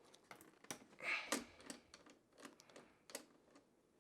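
Faint scattered clicks and taps of a precision screwdriver working small screws out of a motherboard's metal M.2 heatsink, with a brief rustle about a second in.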